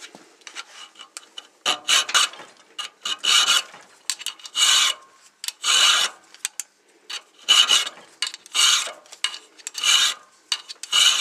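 Small round chainsaw file rasping through a groove in a knife blank, hand strokes about once a second, each a short scrape with a faint ringing note, taking a little material at a time.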